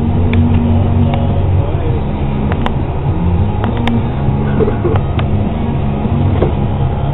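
Combine harvester running steadily at work, a loud low drone with a few light ticks.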